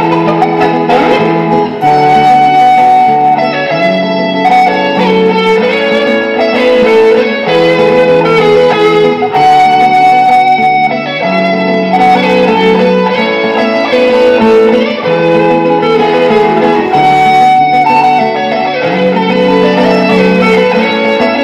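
Electric guitar playing a slow worship melody over sustained chords, with the bass note changing every couple of seconds.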